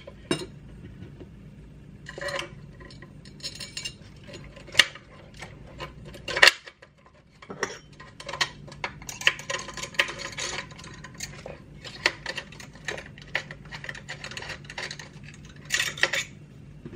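Hex driver and small metal parts clicking, tapping and scraping as the battery-compartment cover of an RC crawler is fitted and bolted shut. It is a scattered run of small clicks and scrapes, with a few sharper clicks standing out about five and six and a half seconds in, over a faint steady hum.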